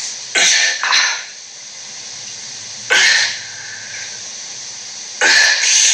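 Cartoon scissors sound effect: three short hissing snips, the first one doubled, each a fraction of a second long and about two and a half seconds apart.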